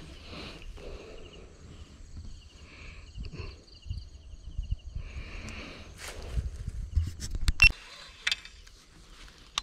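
Insects chirping in an evenly pulsed, high trill over a low rumble of wind on the microphone, with handling knocks and a sharp click in the second half.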